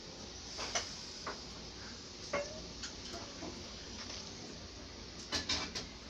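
Irregular light clinks and knocks of hard objects, with a cluster of sharper clicks about five and a half seconds in, over a steady hiss.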